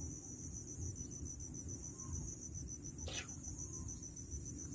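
Crickets chirping in a steady, fast pulsing trill, with one short sharp sound about three seconds in.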